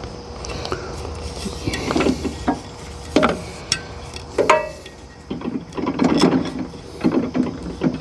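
Cast-iron Kohler single-cylinder engine being turned over by hand with several uneven pulls, each a short mechanical clatter and whir as the engine spins without firing. The pulls free the engine up and get oil moving before a real start attempt.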